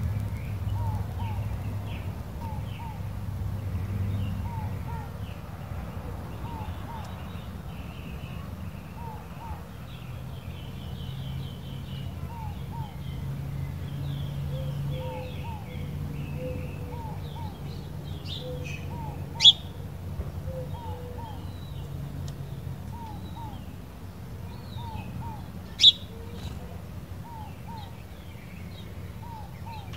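Inca doves and Eurasian collared doves calling: a two-note coo repeated every second or two, with small birds chirping. Two sharp clicks in the second half.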